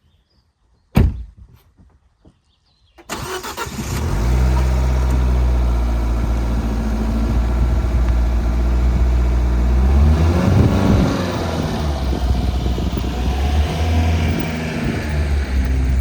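A single sharp thud about a second in, then a Jeep's engine starts about three seconds in and runs steadily, with a brief rise and fall in engine pitch about halfway through.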